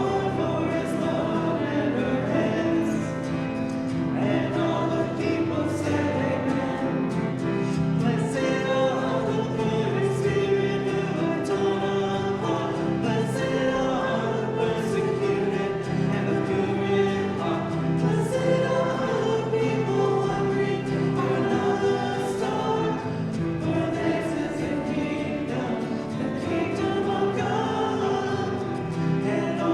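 A group of voices singing a hymn together, holding long notes.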